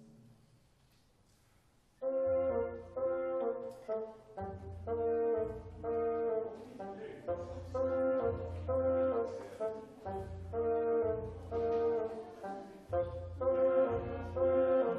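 Live chamber orchestra: a pause of about two seconds, then the orchestra comes in with a run of short, detached chords in a steady rhythm of roughly two a second.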